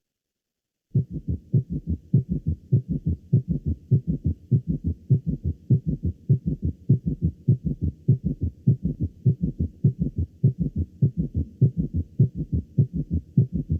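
Recorded heart sounds with a summation gallop: a fast heartbeat in which S3 and S4 fuse into one low-pitched, prolonged mid-diastolic sound beside S1 and S2, the sign of tachycardia shortening diastole. A quick, regular run of low thuds, starting about a second in.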